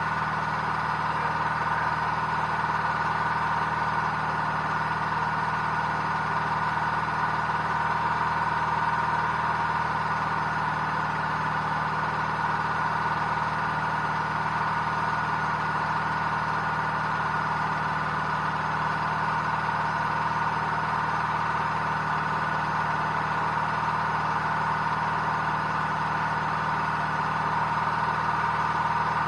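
A machine running at a constant speed, a steady hum with a few held tones over a rough noisy layer, unchanged throughout.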